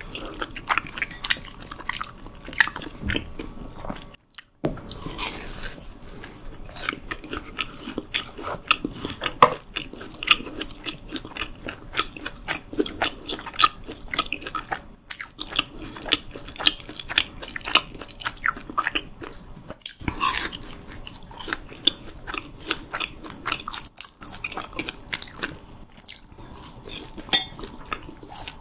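Close-miked eating sounds: biting, crunching and chewing crispy food, with many sharp crackles, broken by a short silence about four seconds in.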